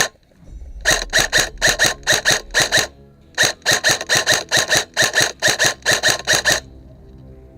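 Electronic alarm beeping rapidly, about four high-pitched beeps a second, in two long runs with a short break between them. The beeping stops suddenly near the end.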